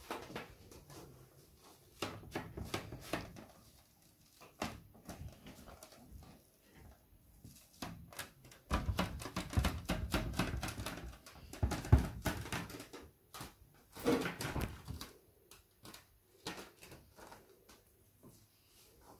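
Rubber balloon coated in wet acrylic paint being dabbed and pressed onto a canvas: irregular taps and rubbing, busiest a little past the middle.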